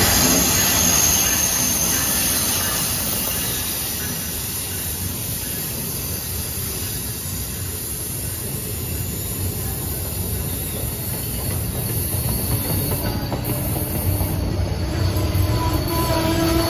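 Amtrak passenger train running past at close range behind an ACS-64 electric locomotive, its Amfleet coaches rolling by with a steady rumble and rush of wheels on rail. The sound is loudest as the locomotive passes at the start, eases a little, then builds again.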